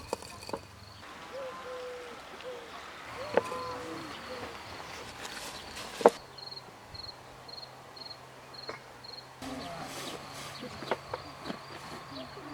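Crickets trilling in a steady high-pitched tone, which breaks into regular chirps about twice a second for a few seconds midway. Over it come a few short animal calls and sharp knocks, the loudest knock about six seconds in.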